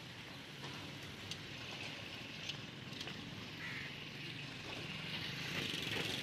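Street noise with a vehicle engine running steadily, a few sharp clicks, and hiss that swells after about five seconds.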